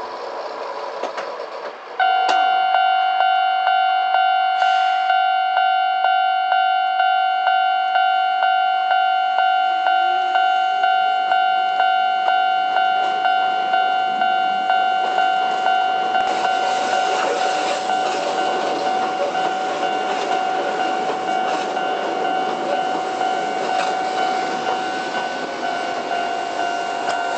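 Japanese level-crossing warning bell ringing in steady, evenly repeated electronic dings, starting abruptly about two seconds in. From about halfway, the running noise of a Keihan 700-series tram-type train moving over the track rises under it.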